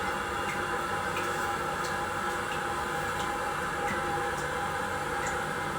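Toilet flush tank refilling after a flush: a steady hiss of water running in through the fill valve, with faint scattered ticks.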